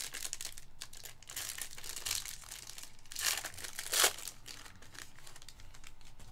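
Foil wrapper of a trading-card pack being torn open and crinkled by hand, crackling throughout, with two louder rips about three and four seconds in.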